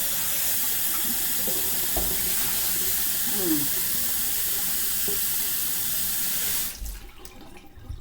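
Water running steadily from a tap into a sink, an even hiss that cuts off suddenly about seven seconds in.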